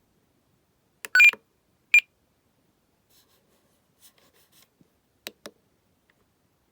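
Spektrum RC radio transmitter beeping: a quick double beep about a second in and a single beep a second later, followed by a few faint ticks and two sharp clicks near the end.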